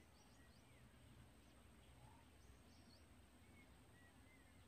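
Near silence in open country, with faint distant bird calls: a few short chirps and thin gliding whistles scattered through.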